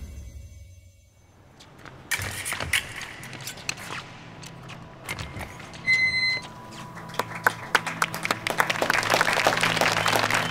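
Title music fades out, then indoor sports-hall ambience: scattered taps, knocks and thuds with crowd noise that builds toward the end. A short high-pitched tone sounds about six seconds in.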